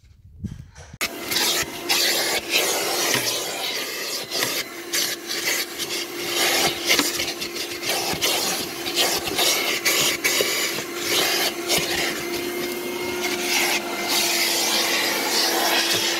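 Handheld vacuum cleaner running, its nozzle scraping over car carpet and cloth seat upholstery to pick up dog hair. A steady motor tone under a rough, scratchy hiss, starting about a second in.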